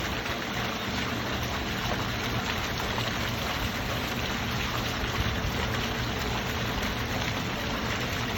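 Water fountain splashing, a steady, even rush of falling water.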